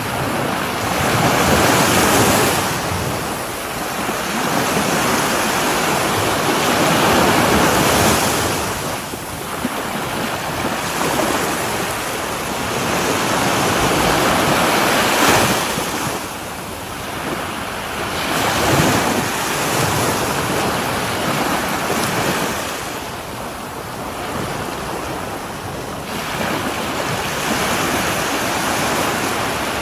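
Ocean waves breaking and washing on a shore, the surf swelling and easing every few seconds, with some wind noise on the microphone.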